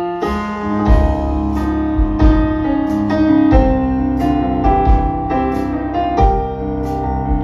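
Stage piano playing a slow instrumental passage: chords and melody notes struck every second or so and left to ring.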